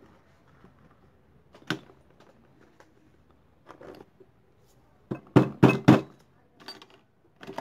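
Metal parts clicking and knocking as motorcycle gearbox parts are fitted by hand into an aluminium crankcase half: a single sharp click about two seconds in, a few softer taps, then a quick run of four loud knocks a little past five seconds in.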